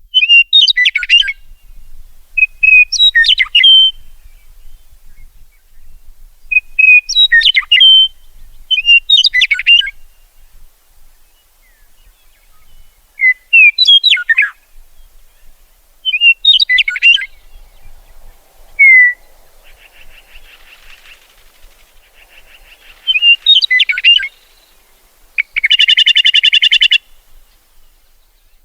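Meadowlark singing: short, slurred whistled phrases repeated about every two to three seconds. Near the end come a buzzy passage and then a loud, harsh rattling chatter lasting about a second and a half.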